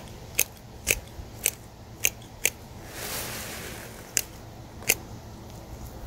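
Hand pruners snipping through sweet potato vines: about eight sharp snips, six in quick succession, then a pause and two more.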